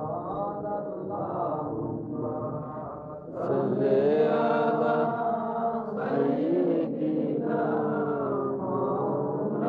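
Islamic zikr chanting: voices singing long, drawn-out notes in a slow devotional chant, growing louder about three and a half seconds in.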